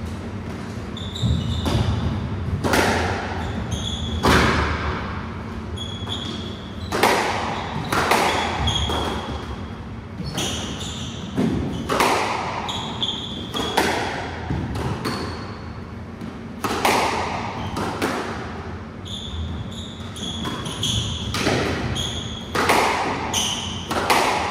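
Squash rally: the ball cracks off the rackets and the court walls every second or so, echoing around the enclosed court, with short high squeaks of court shoes on the wooden floor between the shots.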